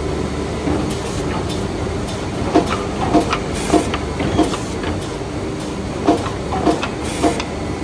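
Woodmaster chalk-mark defect-cutting saw running: a steady machine hum with runs of sharp knocks about twice a second and two short hisses.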